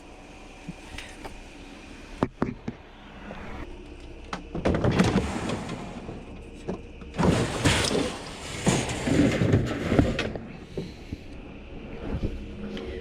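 Handling noise: a few sharp knocks, then two stretches of rustling and clattering as curbside junk is moved about.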